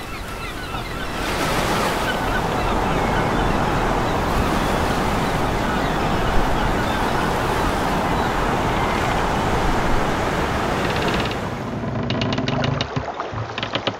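Sea waves and surf sound effect, a steady, even rush of water. Near the end it gives way to a quick, regular clicking, about five or six clicks a second.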